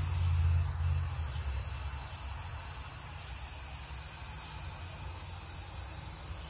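Airbrush spraying leaf glue, a steady hiss of air, with the low hum of a small air compressor that eases about a second and a half in. The glue is barely coming out, so the spray is mostly air.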